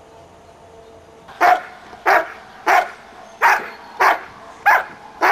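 A 20-month-old German shepherd barking in a steady series of sharp, loud barks, about one every 0.6 seconds, starting about a second and a half in.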